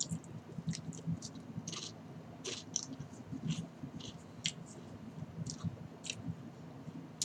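Crunchy potato chip being chewed, with short crisp crunches at an uneven pace of about two a second.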